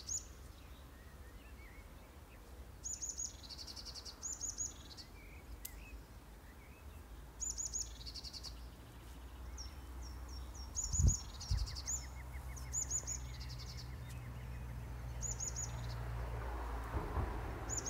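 Songbird singing short, high, quick phrases, repeated every two to three seconds, over a steady low rumble. A single low thump about eleven seconds in.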